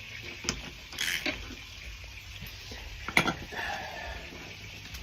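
Metal clinks and knocks of the sacrificial anode rod being drawn out of a hot water heat pump's tank and handled, with a sharp clack about three seconds in.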